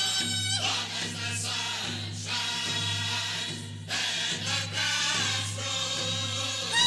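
A powwow song: a group of male voices singing high, falling phrases in unison over a steady drumbeat. A louder high phrase begins near the end.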